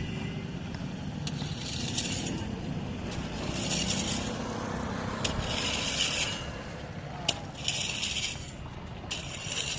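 Crushed stone (rodi) being scraped together and gathered into a pile: a gritty rattle of stones about every two seconds, some strokes starting with a sharp clink. A steady low rumble runs underneath.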